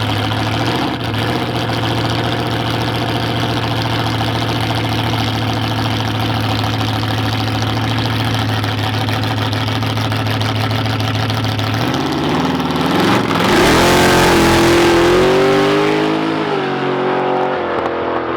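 A drag racing car's engine running with a steady low rumble, then revving about twelve seconds in and launching hard. The engine note climbs, dips once as it shifts, and fades as the car pulls away.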